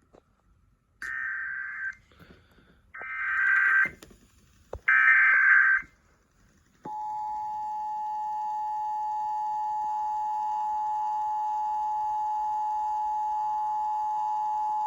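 Emergency Alert System SAME header: three bursts of warbling data tones about a second each, a second apart, the first quieter than the last two. About seven seconds in, the EAS two-tone attention signal starts and holds steady, opening a coordinated test of the emergency alert system.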